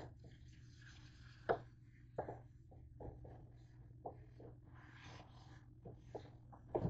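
Paper towel wiping the ridged nonstick plates of a George Foreman grill: faint rubbing and scraping, broken by a few light knocks.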